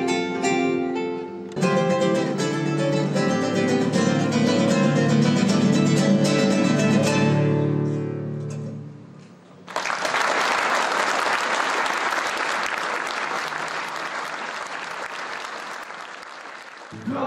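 Two classical guitars playing a duet, a run of chords ending about nine seconds in. The audience then applauds, the clapping slowly dying down and stopping near the end.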